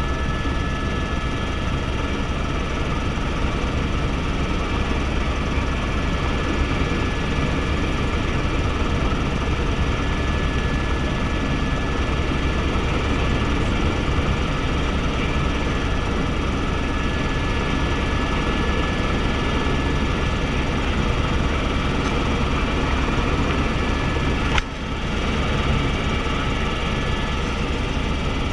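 Helicopter in flight heard from inside the cabin: a steady drone of rotor and turbine noise, heaviest in the low end, with a thin steady whine over it. The level dips briefly about four seconds before the end.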